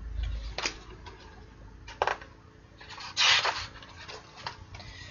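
Pages of a paperback colouring book being handled and turned: a couple of light taps and a short paper swish about three seconds in.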